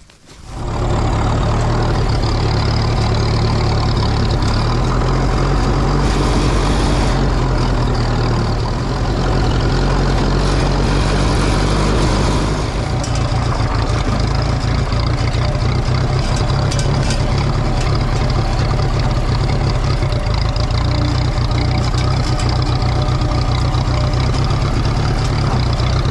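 Ferguson TEA20 tractor's four-cylinder engine running steadily close by, its note shifting slightly about halfway through.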